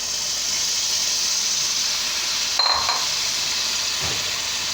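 Chicken and masala frying in ghee in a pot, a steady sizzle as the tomato paste cooks in and is stirred, with a short metallic clink a little past halfway.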